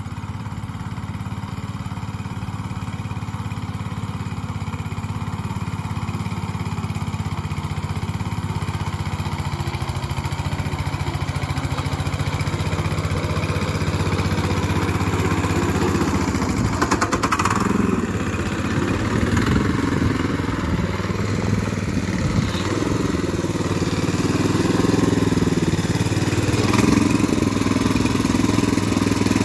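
Small engine of a power weeder rigged for potato work, running steadily and growing gradually louder, with a rougher, more uneven sound in the second half.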